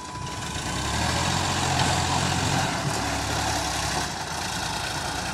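Sonalika DI 750 diesel tractor engine working under load as it pulls a trolley full of sand through soft sand. The engine note swells during the first second, then holds steady.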